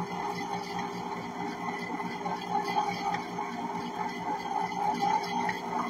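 Electric ice cream maker running steadily, its motor turning the paddle through a thickening chocolate ice cream mix in the freezer bowl; a steady, even hum.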